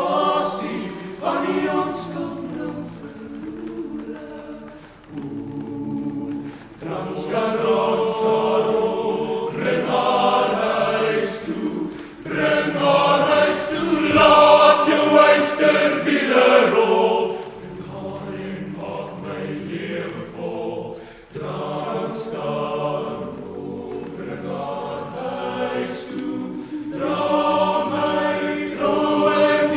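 Male choir singing unaccompanied in harmony, the voices swelling to their loudest about halfway through and easing off afterwards.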